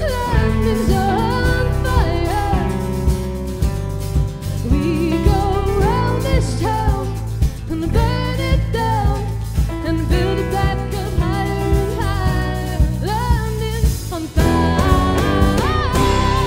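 Live band playing with a steady drum beat: a woman sings over acoustic guitar, bass guitar, electric guitar and keyboard. The band gets louder about two seconds before the end.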